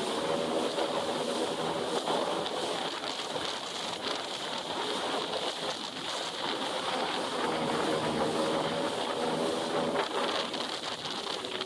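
Yamaha jet ski engine running at cruising speed, about 29 mph, over the rush of water along the hull and wind. The engine note eases off a little around the middle and then picks up again.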